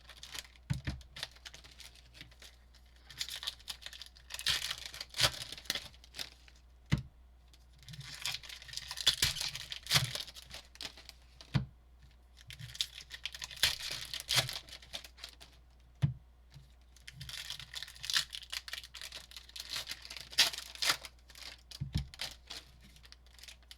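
Sealed baseball-card pack wrappers being torn open and crinkled by hand. There are about five rounds of crackly tearing and crumpling a few seconds apart, with light clicks and taps between them.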